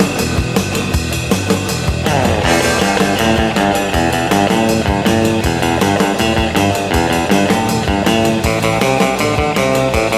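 Skywing Stratocaster-copy electric guitar on stock parts playing a surf-rock melody in a twangy clean tone, over a backing track with drums. The music gets louder about two seconds in.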